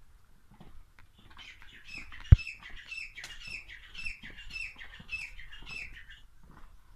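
A small bird singing a quick string of repeated high chirping notes, about two or three a second, for about five seconds. A single sharp knock about two seconds in is the loudest sound.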